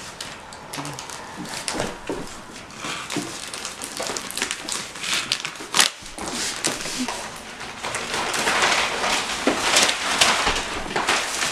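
Plastic wrapping crinkling and rustling as it is cut and pulled off a rolled-up rug, growing louder in the second half.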